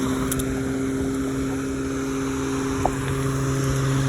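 Corded Greenworks electric lawnmower running, its motor giving a steady hum.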